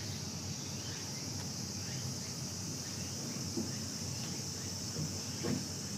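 Steady high-pitched drone of an insect chorus, with a few faint short knocks in the second half.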